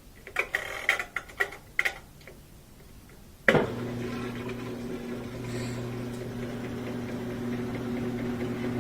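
Maytag top-loading washer: a quick run of clicks as the controls are set, then about a third of the way in the motor starts with a sudden jolt and settles into a steady hum as the spin and drain begin. The drain pump turns freely now that the sock jamming it has been removed.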